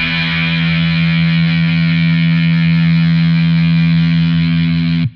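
Intro music: a distorted electric guitar chord struck and held, cut off suddenly near the end.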